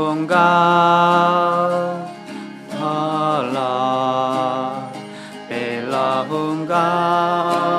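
A slow song sung in long held notes that slide from one pitch to the next, accompanied by two acoustic guitars.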